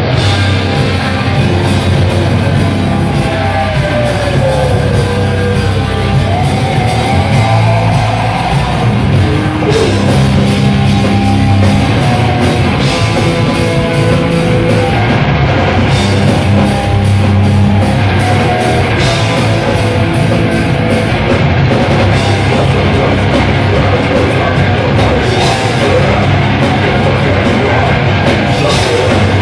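Live hardcore metal band playing loud: distorted electric guitars, bass guitar and a full drum kit.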